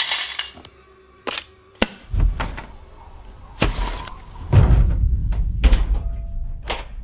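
A run of sharp thuds and knocks: an old box bundled into a plastic bin bag and dumped into an outdoor bin, a lid knocking shut, with a door near the end. A low rumbling drone from the film's soundtrack sits under the later knocks.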